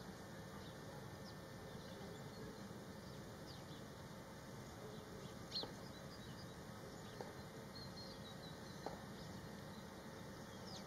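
Short, high bird chirps scattered over a faint steady background hiss, the clearest chirp about five and a half seconds in.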